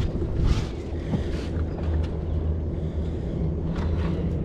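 Boat engine running steadily at idle, a low even hum, with wind on the microphone and two short hissy swishes about half a second and a second and a half in.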